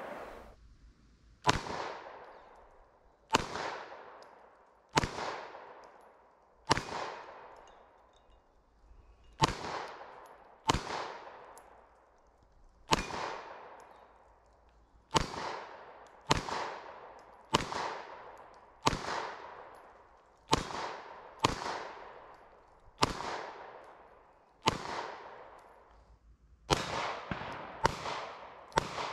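A Walther PDP F 9mm pistol fired shot after shot, about one to two seconds apart, each crack trailing off in an echo. Near the end the shots come quicker, several close together.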